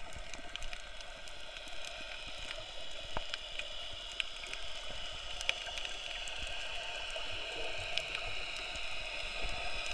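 Underwater ambience heard through an action camera's waterproof housing: a steady muffled hiss with scattered faint clicks and crackles.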